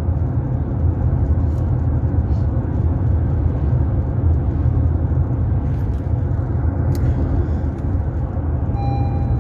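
Steady low rumble of engine and road noise inside a moving car's cabin. Near the end a faint beep starts, repeating about once a second.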